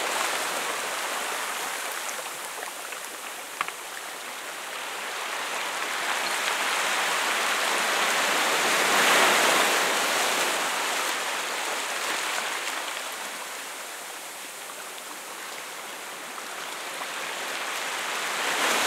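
Sea waves breaking against shoreline rocks and washing up over wet sand, the surge swelling to a peak about halfway through, ebbing, then building again near the end. A single brief click about three and a half seconds in.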